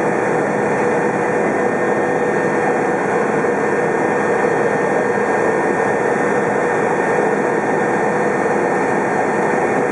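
Cabin noise inside an Agusta A109 twin-turbine helicopter in flight: a steady, loud engine and rotor drone with a constant whine running through it.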